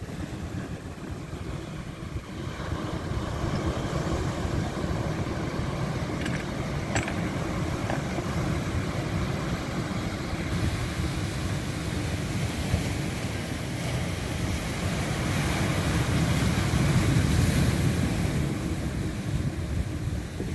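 Sea surf breaking and washing on a pebble beach, a steady rumbling wash that swells louder near the end, with wind rumbling on the microphone.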